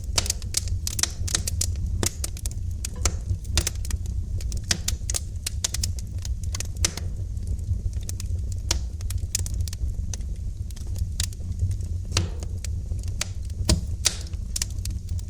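Wood fire crackling in a fireplace: irregular sharp pops and snaps over a steady low rumble. The pops come densely at first, thin out in the middle, and a few louder single pops land later on.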